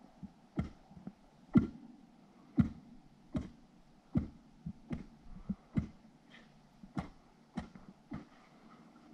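An ice spud chipping at pond ice: a steady run of sharp strikes, a little faster than one a second.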